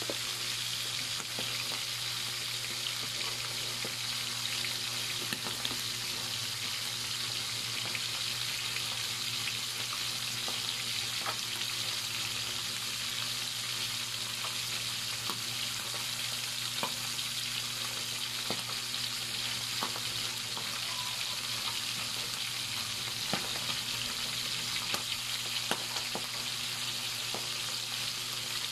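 Salmon head pieces frying in oil in a pan: a steady sizzle with scattered pops and crackles.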